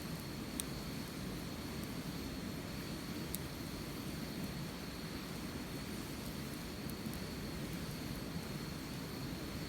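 Wood campfire burning, a steady low rush of flame with a few sharp pops and crackles.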